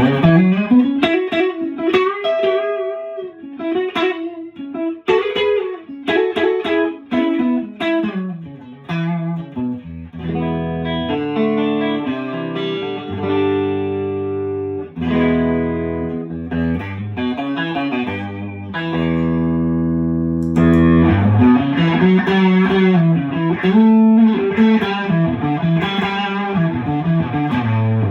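Fender Stratocaster electric guitar being played after a fret level and crown: picked single-note lines with string bends, held chords in the middle, then more bent lead notes.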